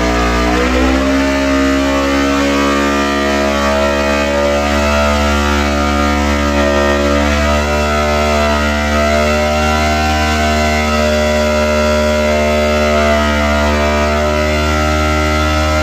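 Kawasaki Z650 parallel-twin engine held at high revs in a burnout, spinning the rear tire to burn the old tire off. The revs climb in the first second, then hold steady with small wavers.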